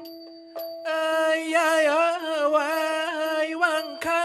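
A nang talung puppeteer sings a verse in a wavering, ornamented male voice over a steady held drone note, with light regular percussion ticks. The voice comes in about a second in.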